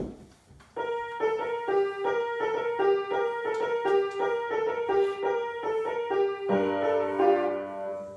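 Piano being played: a quick figure of repeated notes rocking between two pitches under a higher line, ending about six and a half seconds in on a held low chord that fades away. A single sharp knock right at the start.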